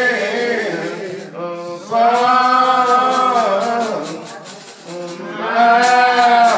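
Slow lined-out hymn singing, with voices holding long drawn-out notes in three phrases and short breaks between them.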